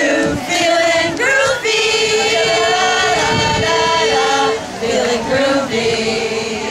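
A group of women singing a team cheer song together in unison, holding one long note for about three seconds in the middle.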